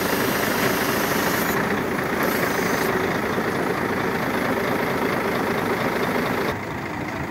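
Truck engine running to drive the hydraulics of a truck-mounted knuckle-boom crane as the boom folds up. The sound drops off suddenly about six and a half seconds in.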